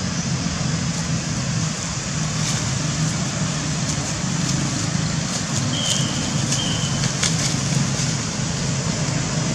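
Steady outdoor background noise: a constant hiss with a low rumble underneath and a few faint clicks. Two short, high chirps come about six seconds in.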